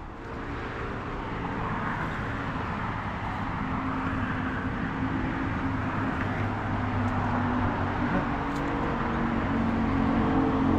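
Road traffic: a motor vehicle's engine and tyre noise growing steadily louder, with a steady low hum.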